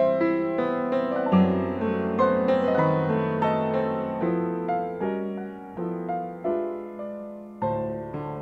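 Solo upright piano playing a slow ballad: chords and melody notes struck and left to ring and fade, growing softer for a few seconds before a louder chord is struck near the end.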